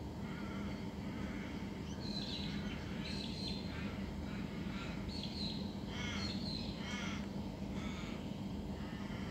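A series of short, harsh bird squawks, about a dozen over several seconds, over a steady low hum.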